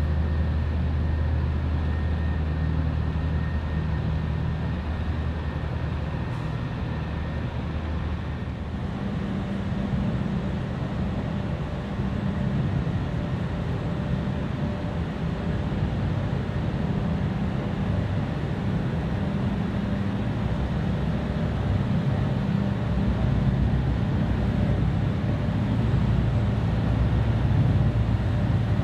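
Steady low drone of the marine diesel engines of a tugboat and a small cargo ship underway, over a haze of churning water. The engine note shifts about nine seconds in, with the deepest hum giving way to a slightly higher one.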